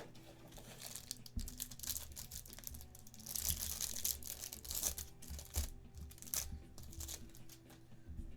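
Trading card pack wrapper crinkling and tearing as a pack is opened, with irregular rustles and light clicks of cards being handled. The loudest stretch comes about three to four and a half seconds in.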